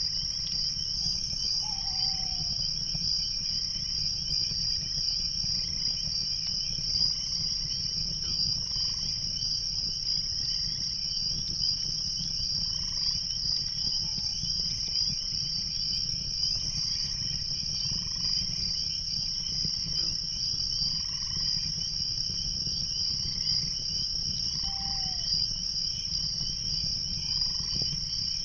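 Night chorus of crickets trilling steadily, over a faint low rush of a stream. A short high tick repeats about every four seconds, and a brief falling call sounds three times.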